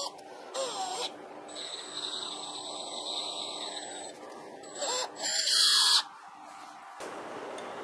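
Cordless drill turning a 10 mm tap into the drilled end of a meat-grinder shaft, cutting threads. The motor whines steadily, with short squeals from the tap in the metal. The loudest burst comes near the end and cuts off sharply.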